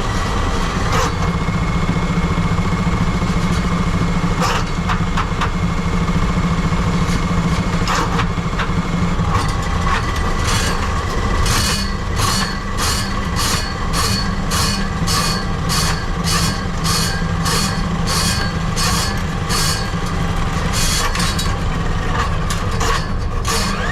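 A motor running steadily with a low hum. From about ten seconds in, a regular ticking joins it at about two ticks a second.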